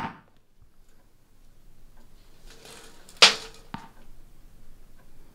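Two sharp knocks in a quiet room: one at the start and a louder one about three seconds in that rings briefly, followed half a second later by a softer tap.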